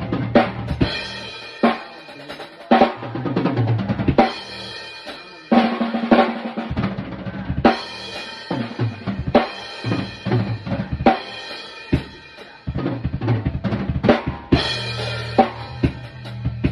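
Drum kit played along to a hip-hop track: kick, snare and cymbal hits over a deep bass line that drops out and comes back several times.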